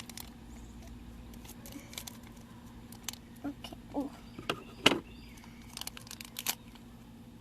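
Small plastic blind bag being torn open and crinkled by hand: scattered rustles and light clicks, with one sharper click about five seconds in.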